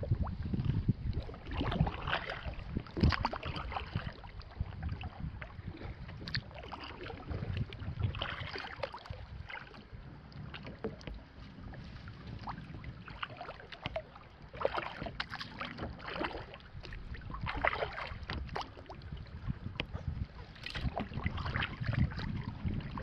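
Kayak paddle strokes dipping and splashing at an unhurried, uneven pace a few seconds apart, with water sloshing along a fiberglass kayak's hull.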